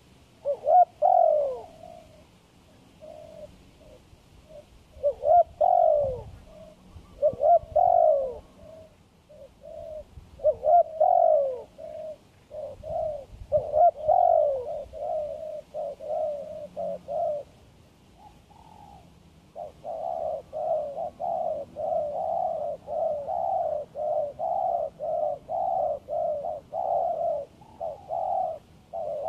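Spotted dove cooing, repeated phrases of low coos. About two-thirds of the way through, it settles into a steady run of short coos, about two a second.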